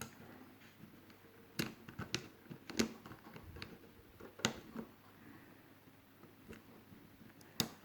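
Scattered sharp clicks and taps of small metal and plastic parts being handled as the spring and spring guide are fitted back into an airsoft V2 gearbox shell, about six of them at irregular spacing, the loudest a little under three seconds in.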